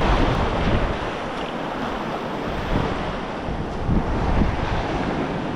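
Surf washing and breaking on a beach, with wind gusting on the microphone in uneven low rumbles.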